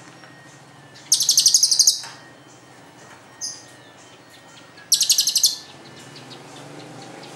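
Young lovebird calling in the long, high trilling 'celilin' style prized by Indonesian bird keepers: two rapid rattling trills of just under a second each, about four seconds apart, with a short chirp between them.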